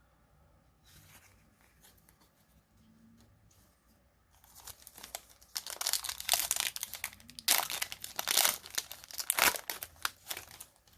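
Foil wrapper of a Yu-Gi-Oh booster pack being torn open and crinkled. It starts faint and grows to loud, continuous tearing and crinkling from about four seconds in, stopping shortly before the end.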